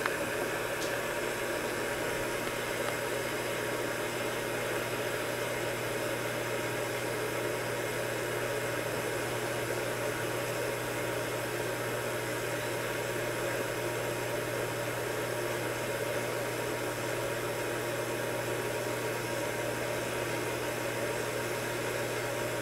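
Steady low hum with an even hiss over it: the unchanging drone of machine room tone.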